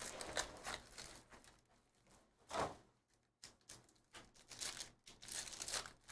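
Plastic shrink-wrap being torn off a trading-card box, then a foil card-pack wrapper crinkling and tearing as it is opened. It comes in short irregular bursts with quiet gaps between, the loudest right at the end.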